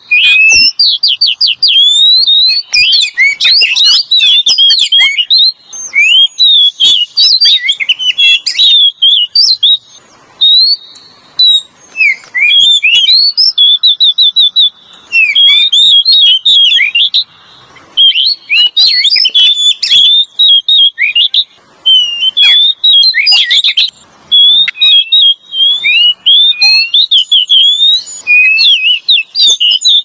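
Oriental magpie-robin (kacer) singing loudly: a rapid run of varied whistled phrases, chirps and trills, broken by brief pauses every few seconds.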